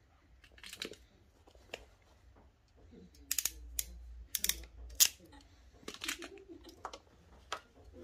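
Hand crimping tool clicking and snapping as wire crimp connectors are pressed onto car wiring, with the wires and plastic plugs rustling. There are a couple of single clicks early, then a quick series of sharp clicks through the second half.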